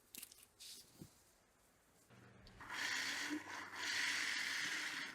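Hand-handling noise: a few light clicks in the first second, then a scraping, rustling noise in two stretches of a second or so each, starting about two and a half seconds in.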